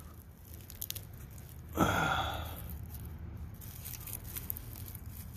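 Dry roots and crown of a Sempervivum heuffelii clump crackling and tearing as hands rip it apart into separate rosettes. About two seconds in comes a louder, brief sound that falls in pitch.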